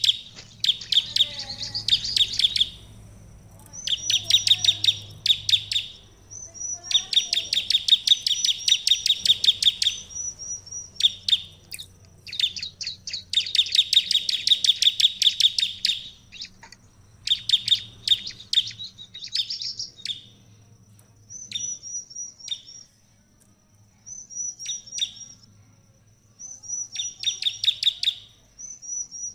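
Bar-winged prinia (ciblek) in full song: bouts of rapid, sharp, repeated chip notes a few seconds long, with short pauses between them. A thin, high, steady note carries on through several of the gaps.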